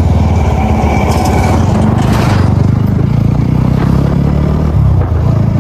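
Single-cylinder motorcycle engine running at low speed while riding, its note rising and falling a little with the throttle. A brief rushing noise about two seconds in.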